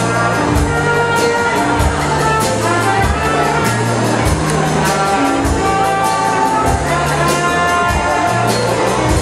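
Lively brass-led music with a steady beat.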